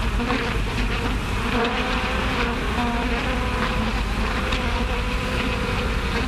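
A swarm of bees buzzing: a dense, steady, wavering hum that cuts off suddenly at the end.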